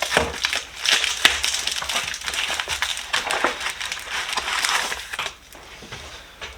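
Packaging around a wooden box being cut and pulled open with a knife: a dense crackling, tearing noise full of small clicks that dies down about five seconds in.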